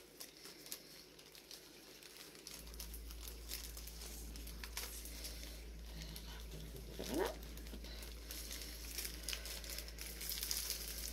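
Plastic packaging crinkling and rustling as diamond painting kits are handled and unwrapped, in scattered faint crackles. A low steady hum comes in about two and a half seconds in.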